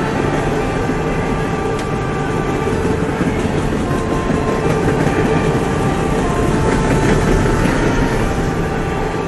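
Freight train's open-top coal hopper cars rolling past close by: a steady rumble and clatter of steel wheels on the rails, with faint thin tones coming and going.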